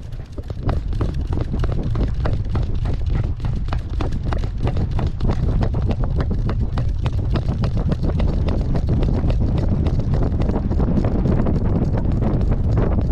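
Wind buffeting the microphone of a GoPro strapped to a running maltipoo, with a rapid patter of thuds and knocks from the dog's strides jostling the camera. It picks up about half a second in and stays loud and busy.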